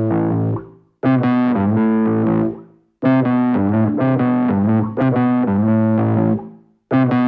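Distorted electric guitar playing a repeating riff in phrases about two seconds apart, each ending in a brief silence before the next begins.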